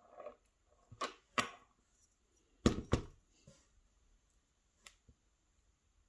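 Fine tweezers and tiny lock pins clicking and tapping against a pin tray as the parts of a gutted lock are laid out: a few separate sharp clicks, the loudest two close together near the middle.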